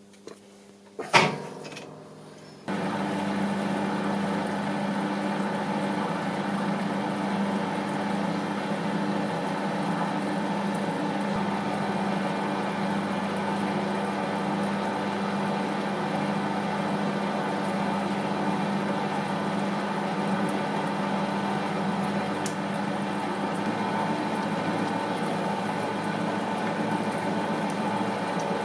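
A sharp knock about a second in, then a metal lathe starts up and runs steadily with an even motor and gear hum.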